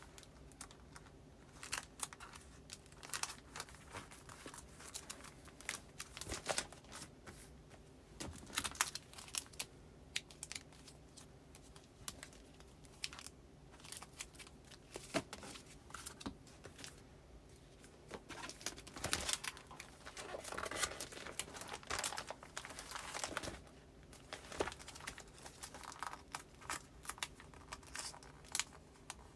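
Paper postcards and plastic binder sleeves being handled while filing, crinkling and rustling with scattered short taps and clicks. There is a longer stretch of rustling a little past the middle.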